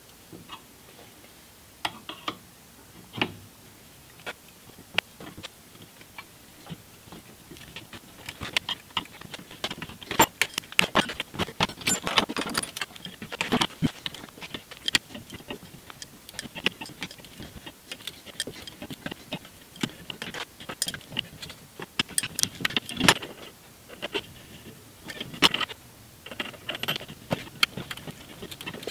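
Irregular metallic clinks and ticks of a half-inch NPT tap being turned by hand with an adjustable wrench in a turbo oil-drain flange, with the wrench and tap knocking and scraping on the metal. The clicking grows busier about ten seconds in.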